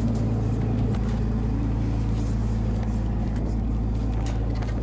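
A fishing boat's engine running with a steady low drone, with scattered footsteps and light knocks on the metal stair grating and deck.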